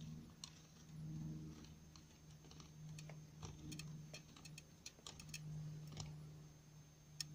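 Faint, uneven small clicks and ticks from a scratch-built model helicopter gun pod as its brass-tube cannon and carbon-fibre machine guns are pushed in and out by hand on a braided steel cable, over a low steady hum.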